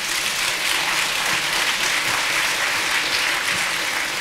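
Large auditorium audience applauding, a dense, steady clapping that begins just before and starts to fade near the end.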